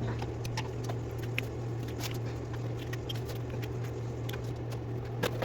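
Scattered light clicks and clatter of small plastic toys and household items being picked up and put down, over a steady low hum.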